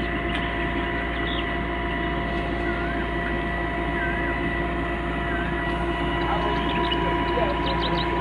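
CAT 312B excavator's diesel engine running steadily: a constant drone with a thin high whine above it.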